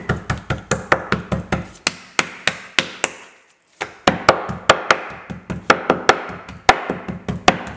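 Large kitchen knife striking a boneless chicken breast on a wooden cutting board in quick even strokes, about four a second, to score and flatten the meat. There is a short pause a little before the middle.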